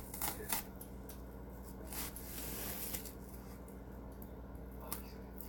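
Small objects handled by hand at a desk: a few light clicks and taps in the first half second and again near the end, with a brief soft rustle about two seconds in.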